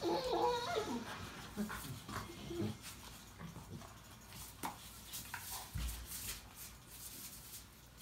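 A husky and another dog play-wrestling, making short, wavering high-pitched vocal sounds in the first couple of seconds, followed by scattered light clicks and a dull thump a little past halfway as they shift about on a tile floor.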